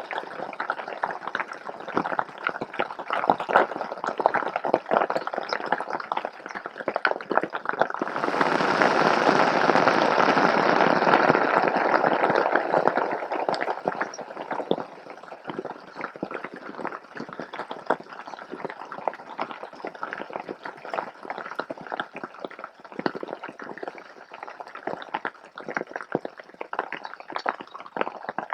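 Heavy hail and rain pelting down in a dense patter of impacts. About eight seconds in it swells into a heavier downpour for some five seconds, then eases back to a steady patter.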